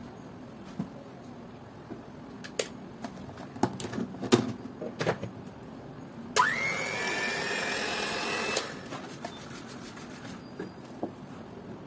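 Kenwood 250 W hand mixer's motor switched on with no beaters fitted: it runs for about two seconds, its whine rising quickly as it spins up and then holding steady, before cutting off. A few clicks and knocks come before it.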